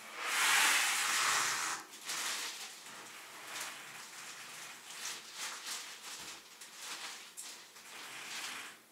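Plastic shopping bag rustling as groceries are taken out, loudest in about the first two seconds, then lighter rustles and small clicks of items being handled.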